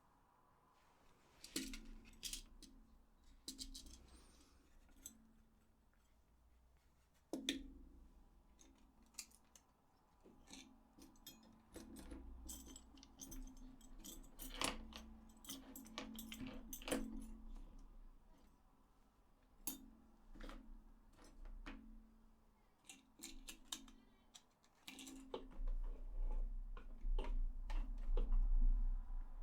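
Small hard plastic parts of a DualShock 4 controller clicking, tapping and rattling as it is handled and put back together, with a low rumble of handling near the end.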